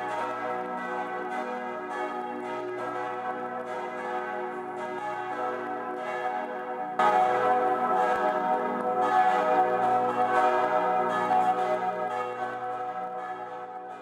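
Full peal of church bells, Herz-Jesu church's bells ringing together in overlapping strokes. The ringing gets suddenly louder about halfway through and fades out near the end.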